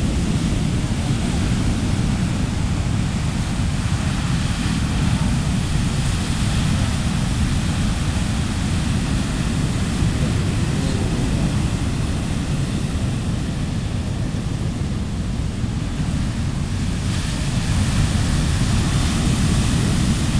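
Heavy storm surf breaking and washing up the beach in a steady wash of noise, with wind rumbling on the microphone.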